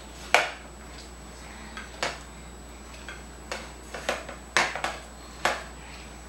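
A toddler eating shell pasta at a plastic high-chair tray: irregular short, sharp clicks and taps, about eight, with the loudest near the start and about four and a half seconds in.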